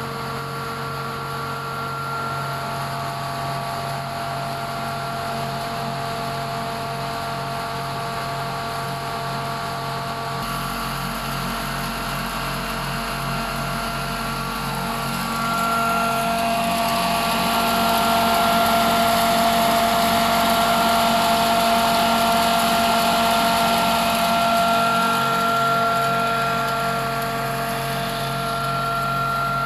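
Atta chakki stone flour mill and the 15 hp electric motor that drives it by belt, running steadily: a constant hum with high whining tones, growing somewhat louder about halfway through.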